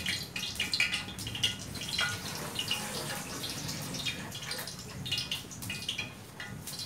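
Potatoes frying in oil in a wok over a gas burner: an irregular crackling sizzle, with a low steady hum underneath.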